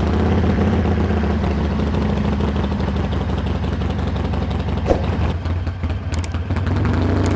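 Harley-Davidson Iron 883's air-cooled V-twin idling steadily, just started.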